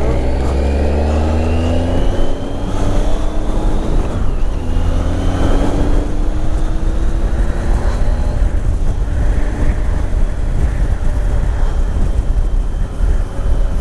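Motorcycle engine accelerating, its pitch rising twice with a gear change between, under loud wind rumble on the microphone.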